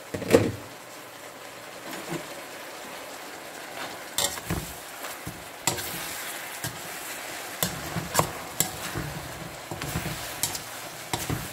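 Chicken pieces sizzling in a steaming wok while a plastic ladle stirs and turns them, knocking and scraping against the pan now and then, with a sharp clatter just after the start.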